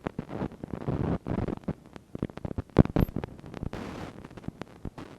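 Irregular crackling clicks and short bursts of hiss from a faulty camcorder microphone, with one louder pop about three seconds in.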